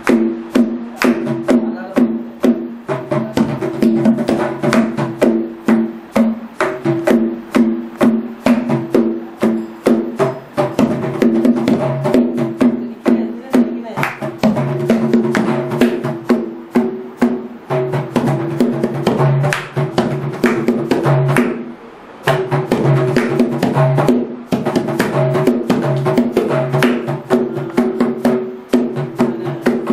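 Mridangam played in fast, continuous stroke patterns: crisp slaps and pitched ringing strokes on the tuned right head, mixed with deep booming strokes on the bass head. The playing eases off briefly a little past two-thirds through, then resumes.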